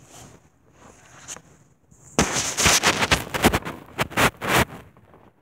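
Loud crackling rustle and scraping of a phone being handled right against its microphone. It starts about two seconds in and lasts about two and a half seconds, with faint rustles before it.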